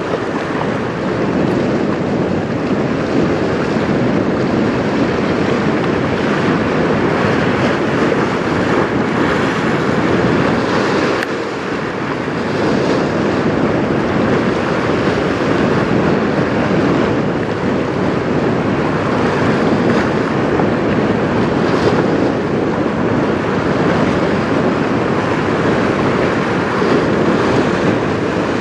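Steady rushing of wind and choppy river water, with wind buffeting the microphone. The noise eases briefly about eleven seconds in.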